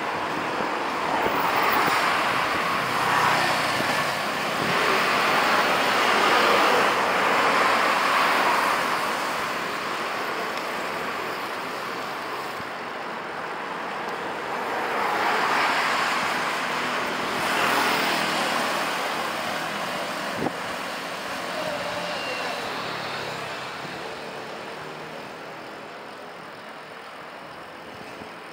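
Road traffic: a steady noise of passing vehicles that swells up twice and fades, with a single sharp click about twenty seconds in.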